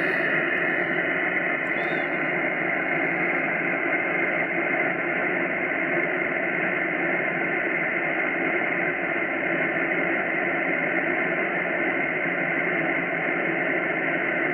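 Steady hiss of band noise from an amateur radio receiver tuned to 28 MHz SSB with no station transmitting, cut off above the narrow voice passband.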